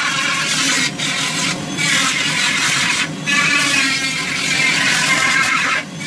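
Dremel flex-shaft rotary tool with a Kutzall carving burr grinding into wood: a steady high motor whine with a rasping cut, dipping briefly a few times as the bit comes off the wood.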